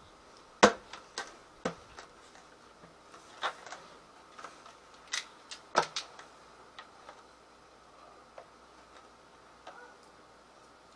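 Sharp plastic clicks and knocks from a white plastic fermenting bucket's lid being pressed down and handled around its rim. They come irregularly, the loudest about two-thirds of a second in, and thin out after about six seconds.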